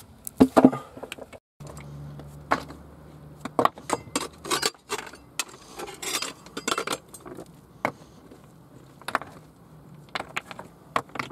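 Loose rocks being dug out of a tunnel floor, clinking and knocking against one another and against a small hand hammer in irregular sharp clicks.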